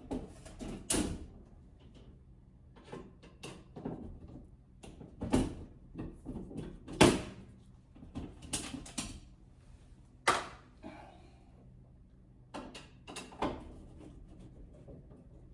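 Steel front cover of a residential breaker panel being handled and taken off: a series of irregular metal knocks, scrapes and clanks, the loudest about seven seconds in.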